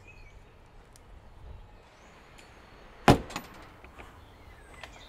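Wooden front door of a house being swung closed: one sharp knock about three seconds in, then a few faint clicks, over a quiet outdoor background.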